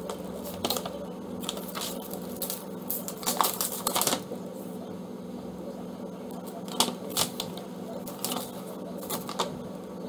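Folded paper leaflets being unfolded and handled: crisp, irregular rustling and crackling of paper, over a steady low hum.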